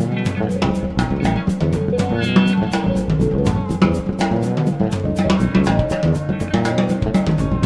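Instrumental jazz-funk fusion band recording: a drum kit plays a busy, steady beat of snare, kick and cymbal strokes under electric bass and guitars, with a wavering guitar note about two seconds in.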